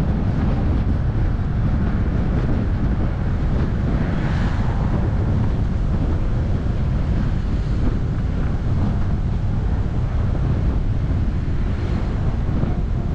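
Wind buffeting the microphone over the steady low rumble of a car driving along a road.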